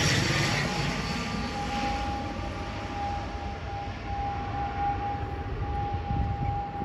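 ATR 72 twin-turboprop airliner on final approach, its engine and propeller noise fading as it flies away after passing overhead, with a steady high whine held throughout.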